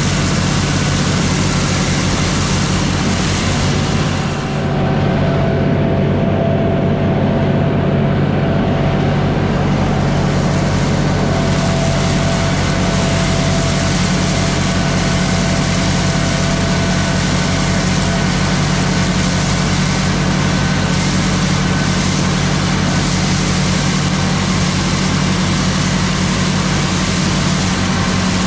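Diesel tractor engine running steadily, with a brief small dip in loudness about four and a half seconds in.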